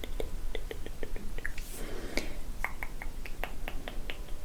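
ASMR mouth sounds: a quick run of soft, wet clicks and pops from the lips and tongue close to the microphone, with a brief breathy whisper-like puff about two seconds in.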